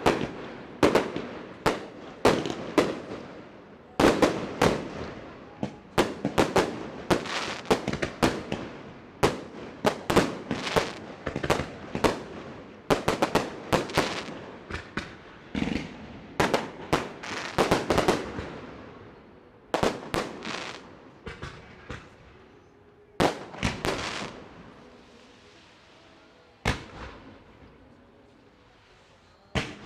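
Fireworks show bursting overhead at close range: rapid bangs and crackles, several a second, each with an echoing tail, thinning to a few single bangs near the end.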